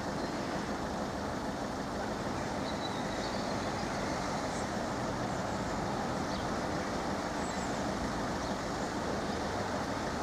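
Steady rumble of vehicles and traffic, with no crossing alarm sounding.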